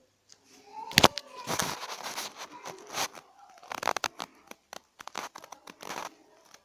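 Irregular crinkling and tearing sounds, broken by sharp clicks, as of paper or plastic being handled.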